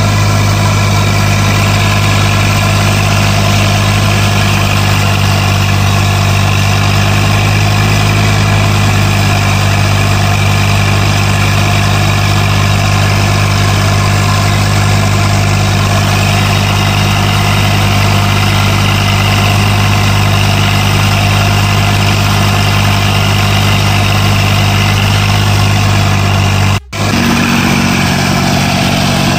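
Zetor 5011 tractor's three-cylinder diesel engine running steadily with a deep, even hum, heard from the cab. About 27 seconds in, the sound cuts and the engine is heard from beside the tractor, still running steadily with a slightly different tone.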